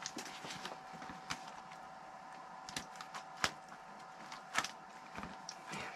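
Scattered light clicks and taps of fishing tackle being handled, over a faint steady hum.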